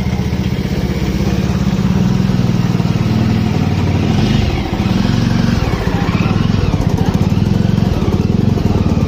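A vehicle engine idling steadily, loud and close, with an even low firing beat throughout.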